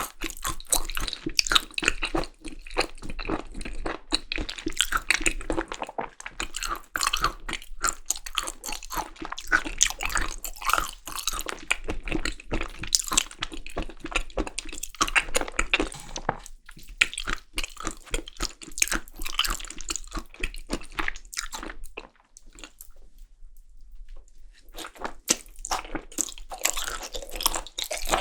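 Close-up eating sounds of Korean seasoned raw beef tartare (yukhoe): wet, sticky chewing with irregular clicks and smacks, briefly quieter about three-quarters of the way through.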